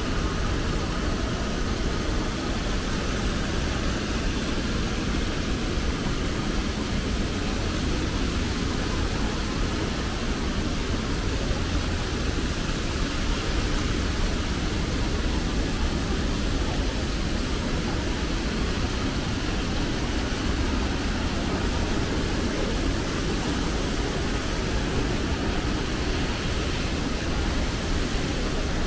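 Steady, even background noise of a shopping mall interior, with a strong low hum and no distinct events standing out.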